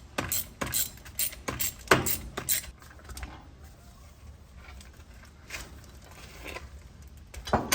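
Small metal starter parts clicking and clinking as they are handled and fitted by hand: a quick run of clicks, a quieter stretch with a few soft knocks, then one sharp click near the end.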